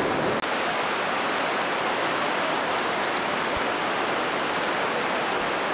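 Fast-flowing river floodwater rushing steadily across and along a highway, an even rushing noise.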